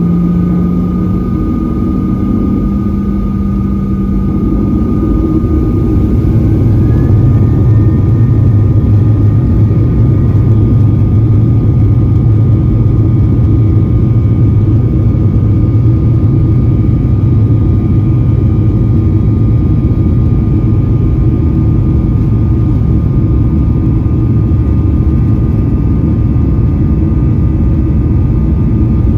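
Boeing 737-800's CFM56-7B turbofan engines, heard inside the cabin, spooling up to takeoff thrust about five seconds in with a rising whine. They then hold a loud, steady roar with a constant fan tone during the takeoff roll.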